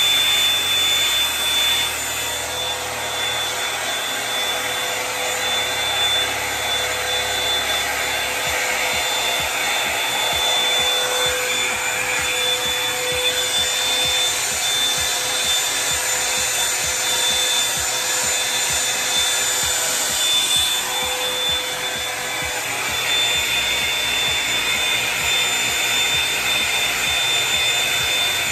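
Hot Tools One Step Blowout Volumizer hot-air brush running on its low setting: a steady rush of blown air with a high motor whine.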